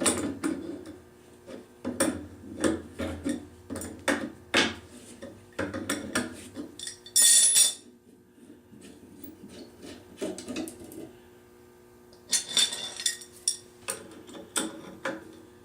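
Metal tools and engine parts clinking, knocking and scraping while the carburetor of a Fuller & Johnson hit-and-miss engine is worked loose during teardown. A sharp metallic clatter comes about seven seconds in, and another burst of clinks near the end.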